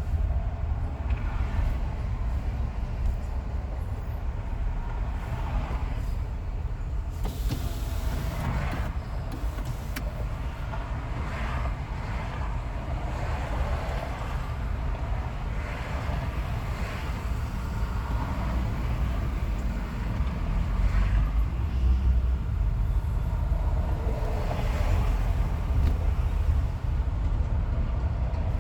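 Car road noise at freeway speed: a steady low tyre-and-road rumble, with several brief swells that rise and fall again.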